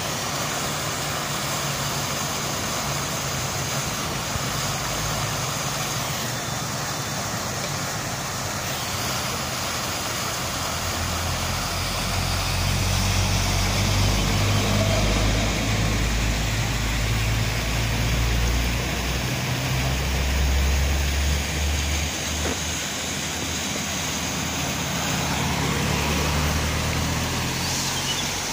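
Road traffic passing, with a cargo truck's diesel engine running loudest as it passes close in the middle, then fading.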